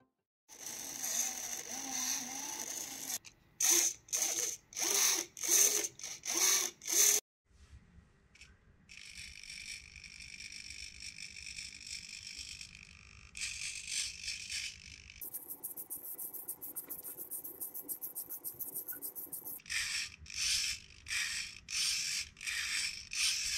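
Small RC hobby servo in a 3D-printed swinging robot whirring as it drives the robot's legs back and forth under manual control from a servo tester. It comes in runs of short bursts about half a second long, with a couple of longer steady stretches and brief pauses between them.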